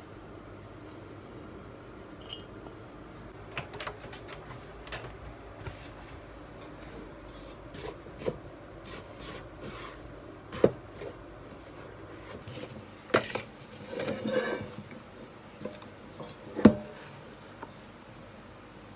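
Kitchen bowls and utensils being handled and set down: scattered light clinks and knocks, with a few louder knocks in the second half.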